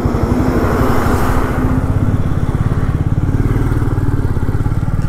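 Motorcycle engine running steadily under way, heard close from the riding position as an even train of firing pulses. About a second in, an oncoming truck passing adds a brief swell of noise.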